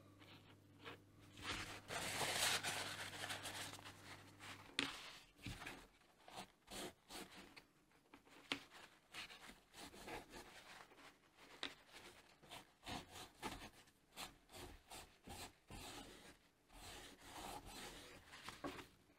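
Cloth rubbing a finishing compound into a leather cuff, a run of quick, uneven scuffing strokes. A faint low hum stops about five seconds in.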